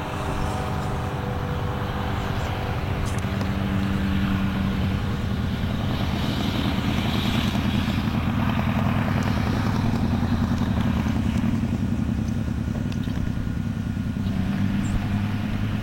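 An engine running steadily with a low, even hum that swells a little louder midway.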